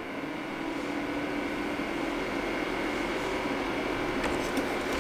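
Houzetek M5 LCD projector's cooling fan starting up after power-on. It grows louder over the first couple of seconds, then settles into a steady whir with a faint hum. This is the running noise of the projector.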